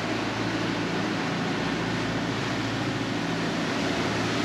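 A sailing catamaran's engine running steadily under way, a low even hum, with a broad hiss of wind and sea water.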